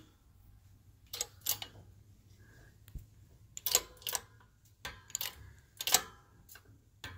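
Shop press being worked to push a new bearing onto an ATV rear differential pinion shaft: a few sharp metallic clicks in small clusters, unevenly spaced.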